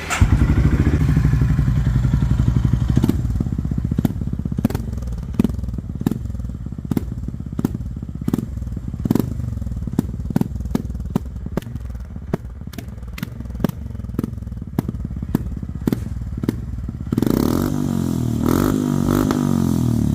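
Honda CB350RS single-cylinder engine with a Red Rooster Pegasus RS aftermarket exhaust, catching right after a cold start and settling into a deep, thumping idle broken by uneven sharp pops. About three seconds before the end it is revved lightly a few times.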